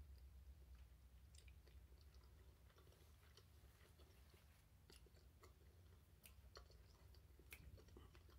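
Faint chewing of a mouthful of pasta, with scattered small wet mouth clicks over a low steady hum.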